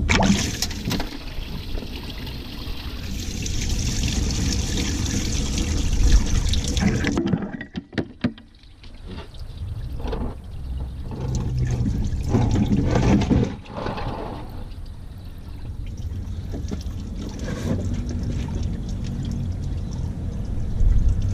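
Orange antifreeze pouring and dripping out of the open water-pump passage down the front of a Dodge 3.5L V6 as the old water pump comes off, with a few sharp knocks of parts being handled partway through.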